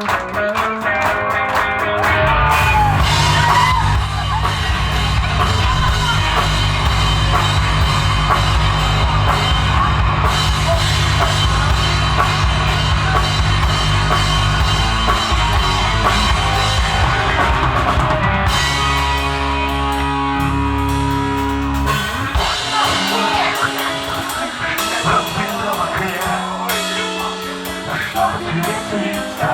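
Live rock band playing: electric guitars, bass and drum kit, which comes in heavily about two seconds in, with the low end dropping away around the twenty-second mark.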